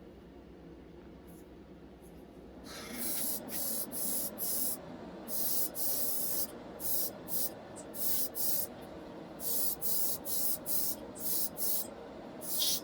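Paint spraying in short bursts: about a dozen quick hisses, each under half a second, starting a few seconds in over a steady lower rush of air.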